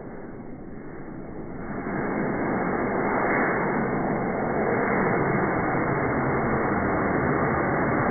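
Homemade potassium nitrate and sugar rocket motor burning with a steady rushing hiss, which grows louder about two seconds in as the motor comes up to full thrust and the rocket lifts off.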